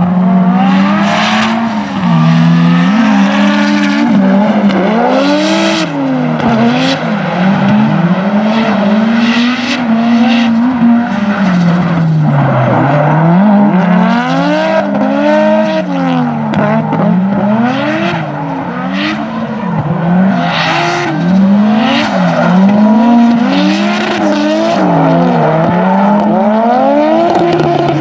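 Two drift cars, a BMW E36 coupe and a Nissan S-chassis coupe, running in tandem: both engines rev hard, their pitch rising and falling over and over with the throttle, over repeated tyre squeal as the cars slide sideways.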